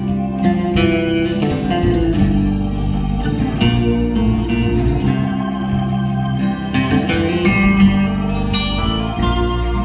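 Instrumental break of a song with plucked and strummed guitar over a steady bass line, played back through a car's custom three-way audio system in the cabin.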